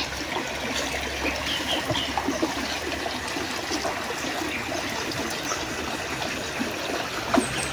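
Shallow creek water running and trickling steadily, with small scattered splashes as a person wades and moves probes through it.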